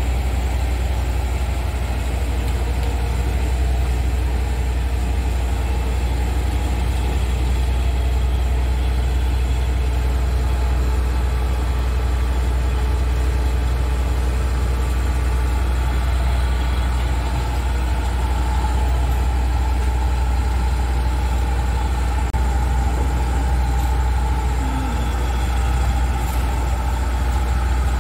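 Kubota DC105X combine harvester's diesel engine running steadily with a low hum as the machine crawls along on its tracks.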